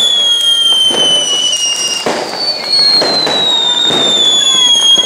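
Ground fireworks going off: a loud, high whistle slides slowly down in pitch over the crackle and pops of spark-spraying fountains, with several sharp cracks.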